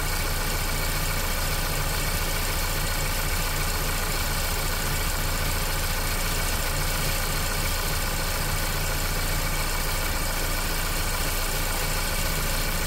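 2012 Ford Focus engine idling steadily.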